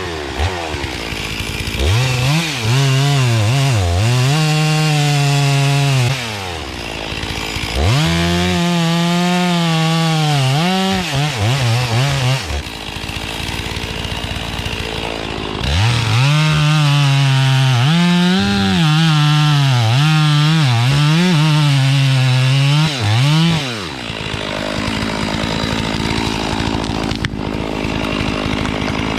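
Stihl MS460 two-stroke chainsaw cutting small trees: three long runs at full throttle, the pitch sagging and recovering under load, dropping back to idle between cuts and revving again near the end.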